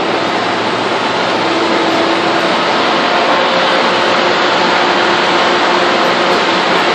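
Loud, steady machinery noise in a steel ship hull under repair: a continuous roar with a faint hum running through it.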